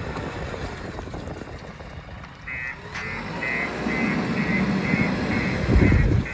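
JCB 3DX backhoe loader's diesel engine running, with its reversing alarm beeping about twice a second from about two and a half seconds in as the machine backs up; the engine grows louder partway through.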